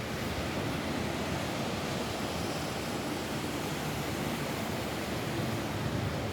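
Steady rain falling on a roof, an even, unbroken hiss.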